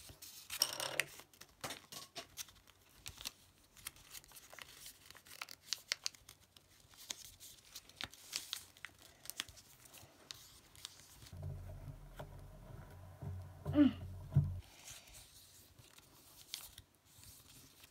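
Paper being folded and creased by hand into a paper airplane's wing: rustling and crinkling with many short crackles as the folds are pressed flat with the fingers.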